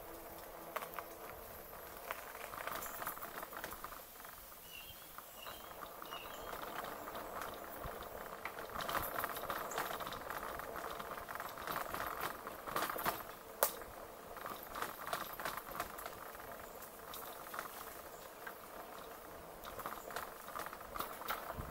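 E-bike tyres rolling over a rough trail surface: an uneven crackling and pattering with scattered sharp clicks, one standing out about two-thirds of the way through.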